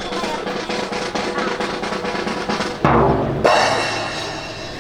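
Snare drum roll of rapid, continuous strikes keeping time for a drill team, with a louder, heavier hit about three seconds in.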